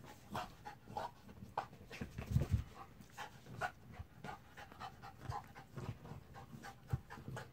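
A dog panting as it mounts and wrestles a large plastic zebra toy, with irregular rubbing and knocking from the toy and a few heavier thumps about two and a half seconds in.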